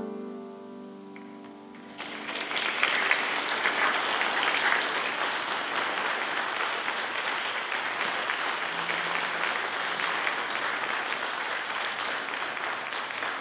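A grand piano's last notes die away, then about two seconds in a congregation breaks into applause that carries on steadily and starts to fade near the end.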